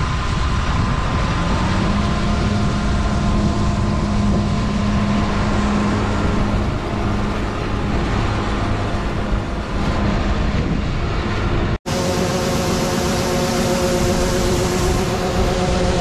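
Older John Deere combine running steadily with a droning hum while harvesting corn. After a sudden break near the end, another steady machine run follows with several held tones: a John Deere combine running with its unloading auger turning.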